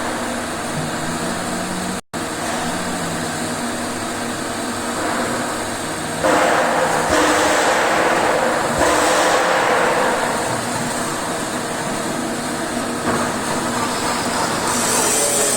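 TIG welding arc at about 120 amps, hissing and buzzing steadily. It breaks off for an instant about two seconds in, and grows louder and brighter in steps later on.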